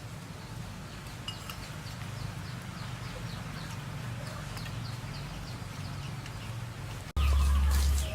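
Birds chirping over and over in short, high, falling notes a few times a second, over a steady low hum. Near the end a much louder low rumble starts abruptly.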